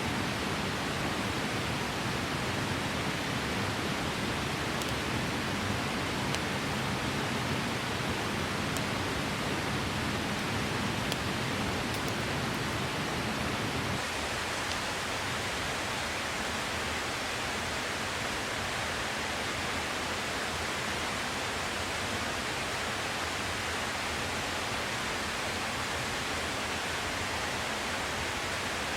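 Steady rushing of a clear mountain stream, an even wash of water noise. About halfway through, the deep part of the sound drops away a little.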